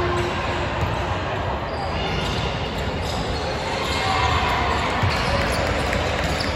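A basketball bouncing on a hardwood gym floor and players running on the court, amid the steady crowd and hall noise of a large gym.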